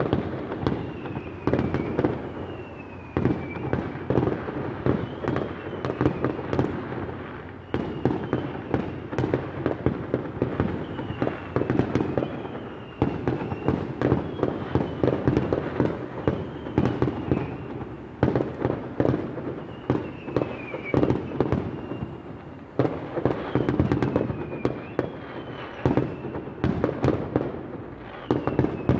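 Many fireworks going off at once across a city: a dense, continuous crackle of bangs and pops, with short falling whistles heard every second or two.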